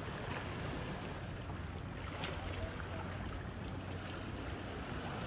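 Calm sea water lapping around a kayak, with a steady low rush of wind on the microphone and a few faint drips or ticks.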